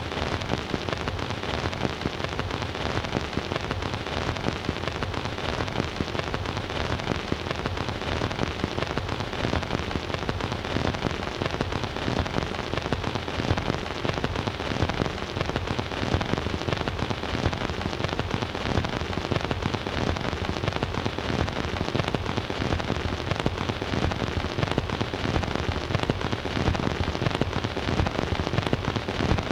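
Stylus running in the lead-in groove of an 8-inch 78 rpm Eclipse record on a Bush record player: dense, steady surface crackle and hiss, with no music.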